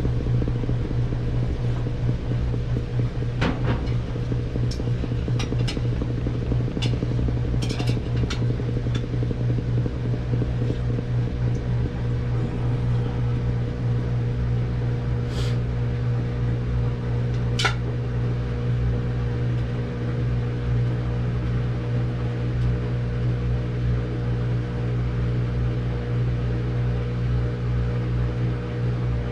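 Samsung washing machine in its long spin cycle, a steady, even motor hum with a few faint clicks.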